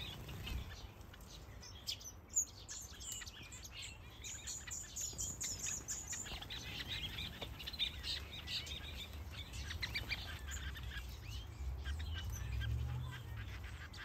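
A chorus of many small aviary finches and canaries chirping and singing, with short overlapping calls and a high trill about six seconds in. A low rumble rises under the birds near the end.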